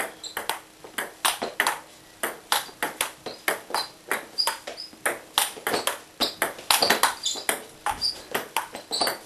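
Table tennis rally: the celluloid ball clicks sharply off the paddles and the table, an even run of hits about two or three a second.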